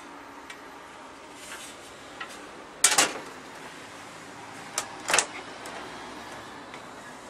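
Sharp clicks and knocks of a wooden interior door and its latch being handled: a loud double knock about three seconds in, then a click and another double knock about two seconds later.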